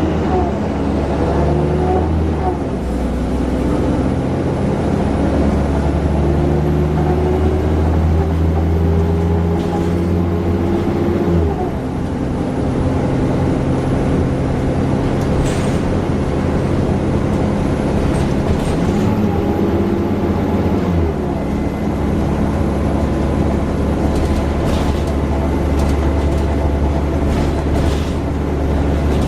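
Alexander Dennis Enviro400 double-decker bus engine and automatic gearbox under way, the engine note climbing in steps through the gears. The engine falls away about eleven seconds in, then pulls away again with a rising note a little later.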